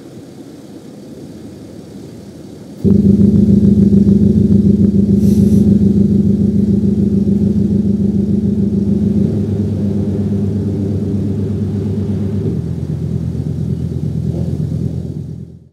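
Active sound exhaust speaker on a BMW X5 4.0d E70 playing a synthesized petrol-engine idle: after a quieter low rumble, a loud steady rumbling engine note cuts in suddenly about three seconds in. Its tone changes twice later on, and it cuts off at the end.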